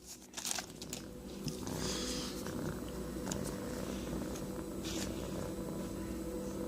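A cat purring steadily close to the microphone, with a few faint clicks of trading cards being handled.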